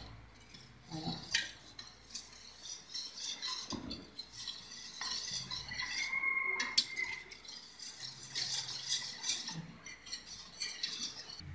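Wire whisk stirring black grass jelly powder into water in a stainless steel pot, its wires scraping and clinking against the metal sides in quick, irregular strokes as the powder is dissolved before cooking.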